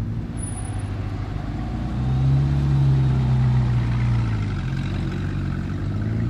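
Supercar engine running at low speed, with a louder, steady engine note from about two seconds in that lasts some two and a half seconds before settling back.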